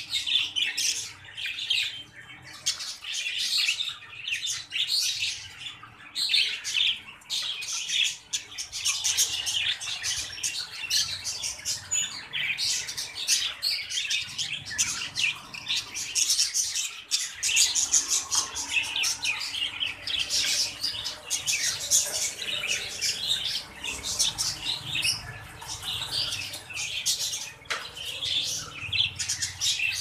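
Budgerigars chattering and chirping without pause: a dense run of rapid, high-pitched calls.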